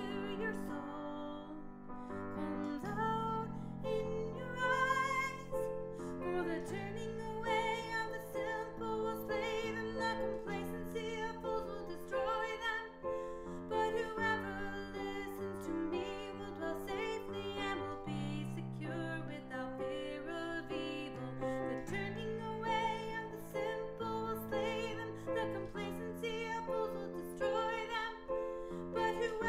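Music: a voice singing a melody with vibrato over sustained piano chords that change every couple of seconds.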